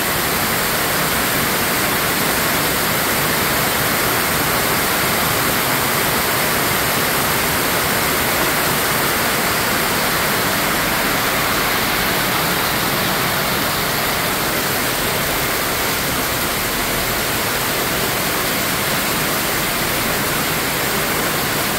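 Heavy rain pouring steadily on a corrugated sheet-metal roof, an even, unbroken hiss.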